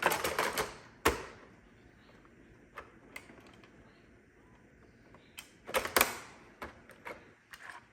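Hard plastic clicks and knocks as a Roomba cleaning head module is handled and fitted into the robot's body: a rattle of clicks at the start, a sharp knock about a second in, and another cluster of clicks about six seconds in.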